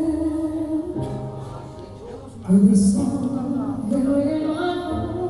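Live band music with a voice singing held notes, getting louder about two and a half seconds in.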